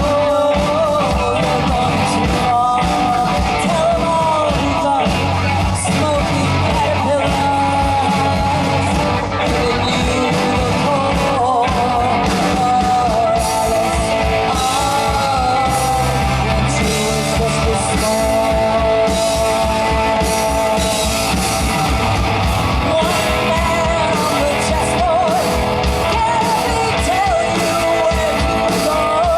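Rock band playing live, with a singer's voice over electric guitar, bass and a steady drum beat.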